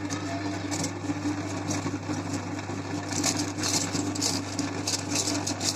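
Electric meat grinder running with a steady motor hum. From about three seconds in, crackling and grinding grows louder as material is forced through it.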